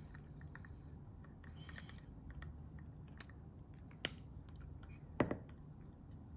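Faint, scattered light clicks and ticks of a metal wire-twisting instrument handling orthodontic wire against the plastic teeth of a dental model, with a sharper click about four seconds in and another about a second later.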